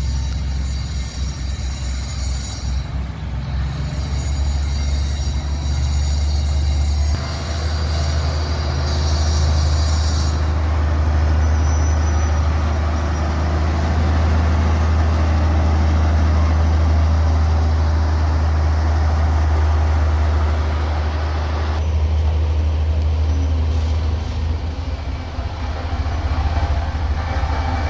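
Heavy diesel road-construction machinery running steadily with a deep, low drone, its sound changing abruptly several times.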